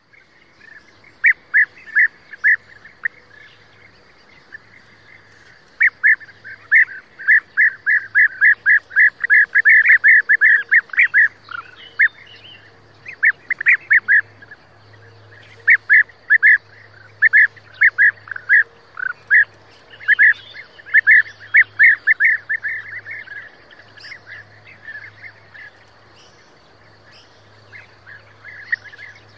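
European bee-eaters calling: short, rolling calls repeated in quick runs of about three a second, with pauses between the runs. The calls thin out to a few faint ones near the end.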